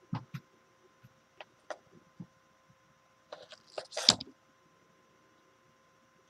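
Scattered small clicks and knocks of parts and tools being handled on a workbench, with a quick clatter about four seconds in and one sharper knock at its end.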